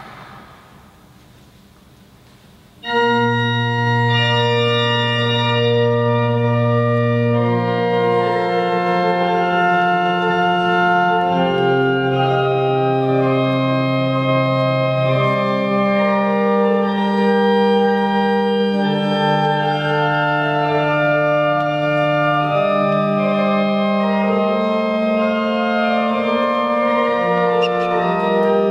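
Organ entering suddenly about three seconds in after quiet room hiss, then playing slow, sustained chords of Baroque music with a bass line that moves every couple of seconds.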